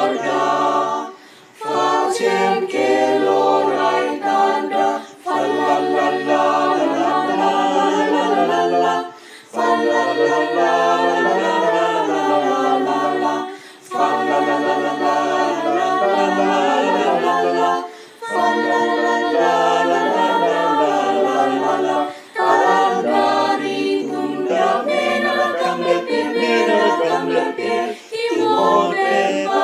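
Mixed-voice choir of women and men singing a cappella in several parts, in long held phrases with short breaks for breath every few seconds.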